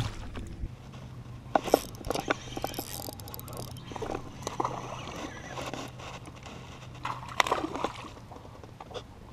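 Bass boat's bow-mounted electric trolling motor humming steadily, stopping shortly before the end, with scattered knocks and water splashes.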